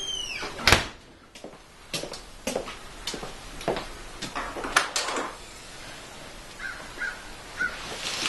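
A door creaks and bangs shut, then footsteps knock across a concrete floor. Near the end come small clicks and squeaks as the scissor door of a Lamborghini Diablo is unlatched and swung up.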